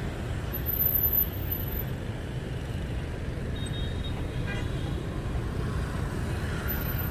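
Steady city street traffic noise, a low rumble of passing vehicles, briefly louder about a second in.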